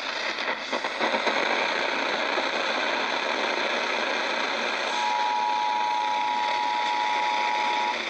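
Hiss of an AM broadcast through a portable multiband radio's speaker. About five seconds in, the Emergency Alert System attention signal begins: two steady tones sounding together, which cut off just before the end.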